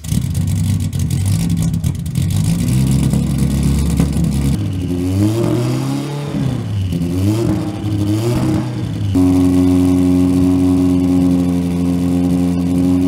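Porsche 924 Carrera race car's turbocharged four-cylinder engine idling, then revved up and down several times from about four and a half seconds in. From about nine seconds in it is held at steady raised revs.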